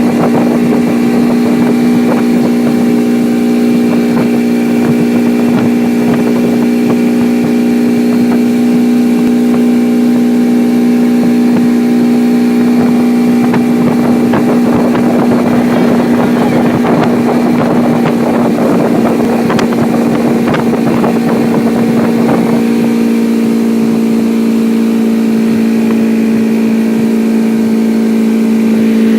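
Motorboat engine running steadily at a constant pitch, towing at speed, with a rushing hiss over it through the middle stretch.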